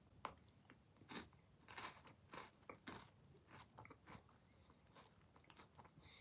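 Faint crunching as a person bites into and chews a chocolate-coated biscuit stick with almond pieces (Pepero Almond). There is a sharp snap at the first bite, then irregular crunches about twice a second.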